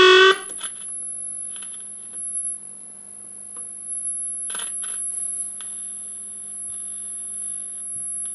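Radialva Groom valve radio, unstable and oscillating, sounding through its loudspeaker: a loud howl cuts off in the first moment, then a steady hum and a constant very high-pitched whine carry on, with a few faint clicks. The restorer suspects that the home-made coils, or wrongly phased negative feedback from the output transformer secondary, are causing the instability.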